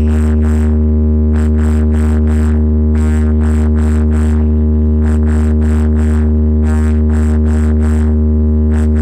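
Electronic remix track at sound-check volume: a steady, held deep bass tone under a regular pattern of short percussive hits.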